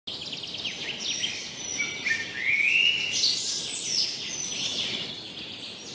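Birdsong: several birds chirping and whistling with quick rising and falling notes, including a longer rising whistle about two and a half seconds in.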